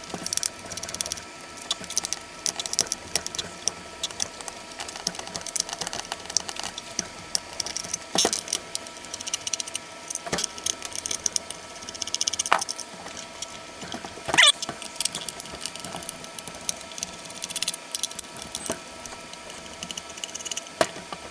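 Irregular small clicks and taps of hands and a small screwdriver handling the plastic case of a FrSky Taranis X9D radio transmitter as it is opened, with one sharper click about 14 seconds in. A faint steady hum runs underneath.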